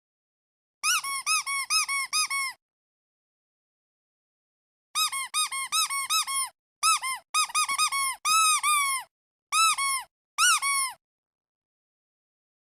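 Squeaky duck toy squeezed over and over. It gives quick runs of short squeaks, each rising then falling in pitch. A run of about seven starts a second in, then there are silent gaps, then longer runs, and two single squeaks come near the end.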